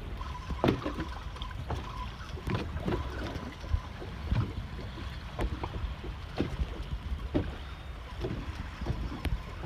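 Water slapping and lapping against the hull of a small fishing boat rocking at sea, with irregular knocks and wind buffeting the microphone.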